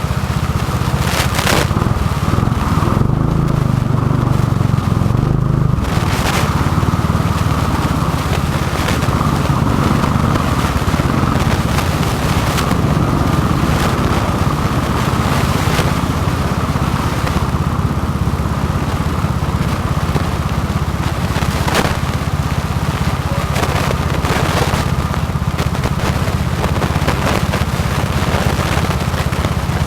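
Go-kart engine running continuously at speed, a steady low drone with scattered sharp clicks and knocks.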